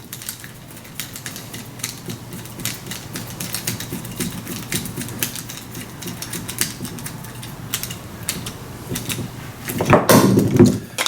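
Rapid small metallic clicks and scrapes of a screw being tightened down on a stick-welding electrode holder to clamp its cable, under a faint steady hum. A louder clatter of handling about ten seconds in.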